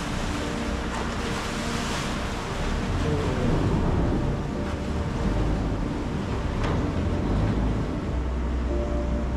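Engine of a canal passenger boat running with a low, steady rumble as it comes alongside the pier, mixed with water churning against the hull.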